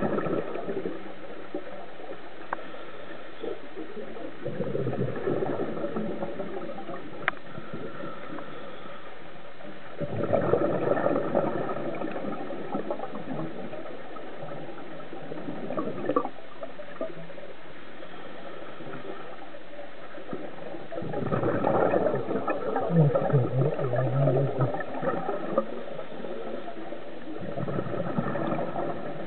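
Scuba regulator breathing heard underwater: a burst of exhaled bubbles gurgling out every five or six seconds, with quieter stretches between breaths. The longest, loudest burst comes about two-thirds of the way through.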